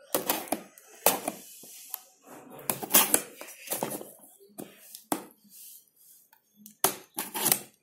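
A cardboard chemistry-set box being handled while its seal is broken open: irregular scrapes, clicks and rustles.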